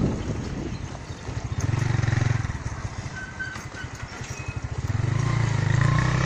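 A small engine running nearby, swelling in loudness about two seconds in and again near the end.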